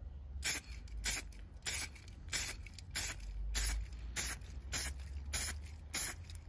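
Aerosol spray paint can hissing in about ten short spritzes, nearly two a second, laying a light coat of paint over filler primer.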